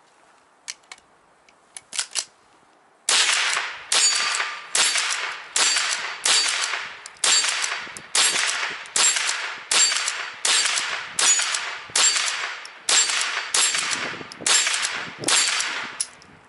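Henry pump-action .22 LR rifle fired rapidly: about sixteen sharp shots a little under a second apart, each trailing off briefly. A few light clicks of handling come before the first shot, which lands about three seconds in.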